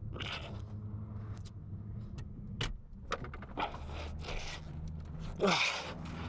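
Scattered scrapes and clicks over a steady low hum, with a brief louder scraping squeal, falling in pitch, about five and a half seconds in.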